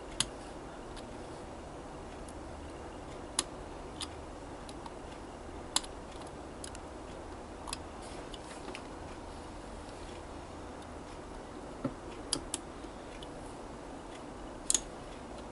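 Small, sharp clicks and taps of fingers and fingernails prising at the plastic coal load in the bunker of a Hornby SE&CR H Class model locomotive, as it is worked loose. The clicks come singly, a second or several apart, over a faint steady hum.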